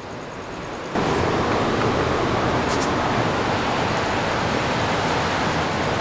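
Steady rush of sea surf, an even noise that jumps up abruptly about a second in and then holds level.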